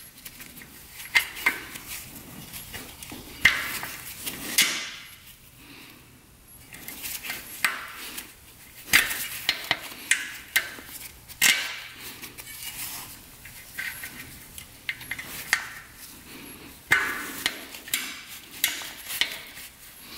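Small metal parts of a 1980 Suzuki RM125's clutch release arm being worked by hand: irregular metallic clicks and clinks with short scrapes, as the arm and its return spring are fitted and adjusted.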